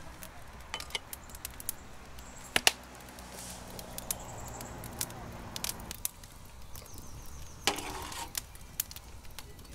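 Light clicks and knocks of camp gear being handled: an insulated bottle set into a folding chair's cup holder, then a glass jar of coffee beans set down on a metal table, with a sharp double knock about two and a half seconds in and a small cluster of knocks near the end. A faint low hum runs through the middle few seconds.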